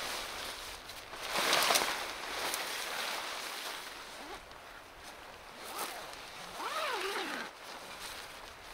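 Nylon tent rainfly rustling and flapping as it is thrown over a dome tent and pulled into place, loudest about a second and a half in.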